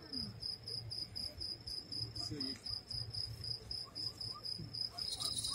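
A cricket chirping: one high note repeated in fast, even pulses, over a steady low hum. A short hiss comes in near the end.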